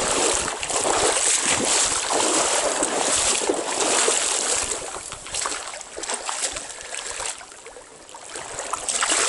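Rushing river water mixed with wind noise, a steady hiss that swells and eases and drops away for about a second near the end.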